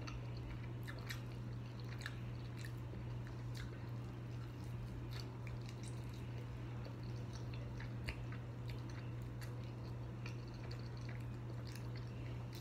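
Close-up chewing and biting on a sauced chicken wing, with many small scattered clicks and crunches of skin and meat, over a steady low hum.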